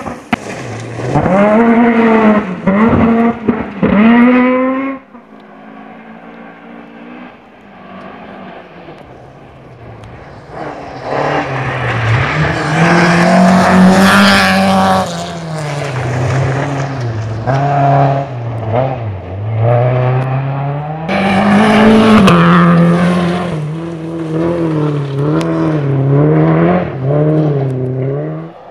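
Rally cars at full throttle on a special stage. One engine revs up hard with quick gear shifts in the first few seconds. After a short lull another car comes and passes, its engine note rising and falling as the throttle is worked, loudest as it goes by.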